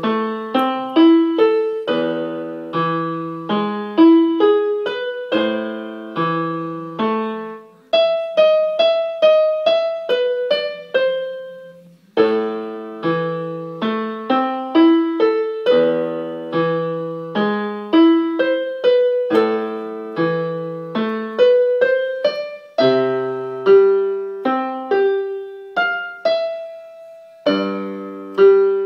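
Casio electronic keyboard played with both hands in a piano voice: a melody of separate struck notes over lower chords, with a brief gap about twelve seconds in.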